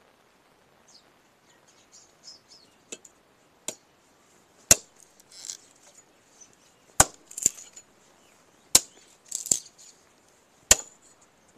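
Firewood being chopped: a couple of light knocks, then four sharp chopping blows about two seconds apart, several followed by a short crackle of splitting wood.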